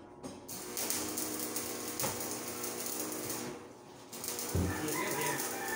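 Electric angle grinder grinding the steel stair railing. It runs steadily for about three seconds, eases off briefly, then starts again with a knock.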